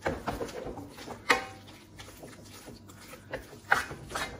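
Wooden spoon stirring creamy tonnarelli in cheese and pepper sauce in a metal frying pan: wet squelching and slapping of the pasta, with a few sharper knocks of the spoon against the pan, one about a second in and more near the end.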